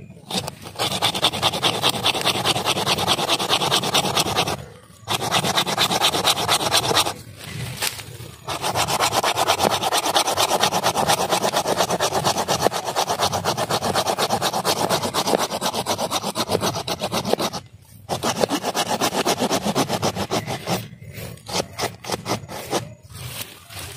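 A hand saw cutting through wood in long bouts of rapid strokes, stopping briefly a few times.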